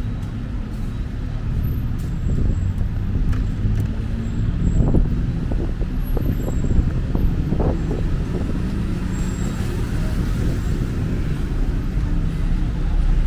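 City street traffic: a steady low rumble of cars and buses passing, with a few brief faint sounds about halfway through.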